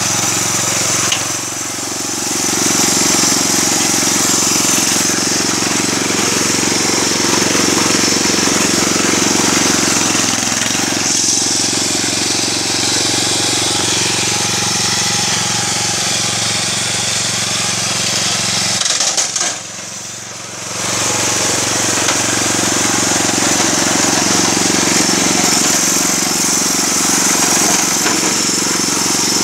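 Small petrol engine of a modified wheeled lawn mower running steadily at speed while mowing tall grass and weeds. The sound drops briefly about two seconds in and again, for about two seconds, around twenty seconds in.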